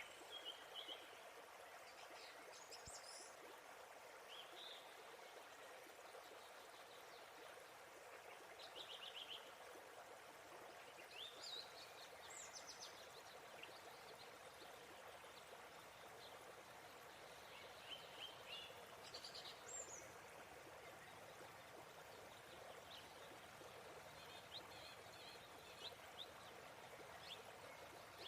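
Steady, faint rush of a waterfall, with short bird chirps coming every few seconds over it.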